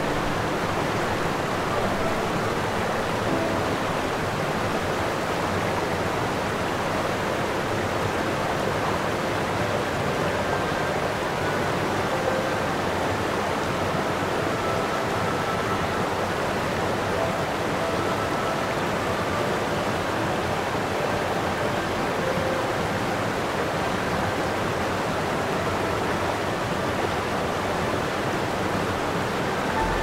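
Steady rushing noise of running water, unchanging throughout, with a few faint short tones scattered through it.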